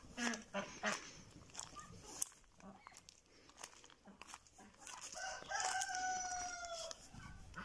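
A rooster crows once, a long call starting about five seconds in, with scattered short clicks and brief sounds before it.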